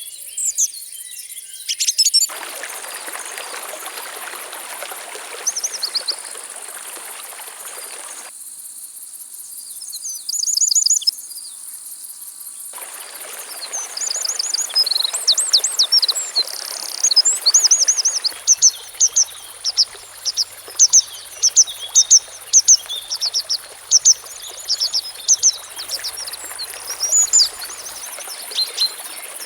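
Birds chirping and singing in quick repeated notes, busiest in the second half, over the steady high-pitched drone of insects and the rush of flowing water. The water sound cuts out abruptly for a couple of seconds at the start and again for about four seconds a third of the way in.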